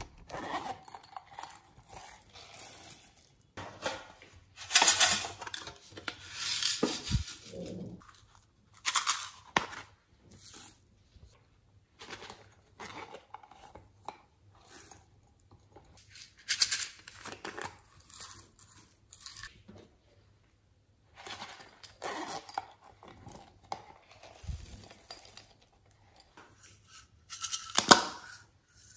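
Hands squeezing and pulling apart small silicone squishy toys and scraping out their glittery fillings: irregular crinkling, tearing and clicking sounds in short bursts, loudest about five seconds in and near the end.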